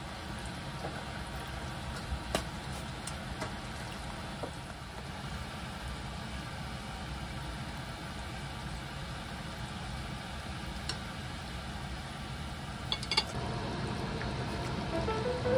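Sauce simmering in a frying pan on low heat, a steady low hiss and bubbling, with a few light clicks of a utensil against the pan or pot.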